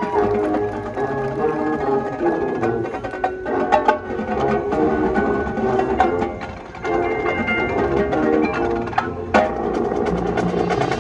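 Marching band playing, with the percussion section to the fore: many sharp hits over held pitched notes. The music thins briefly about seven seconds in.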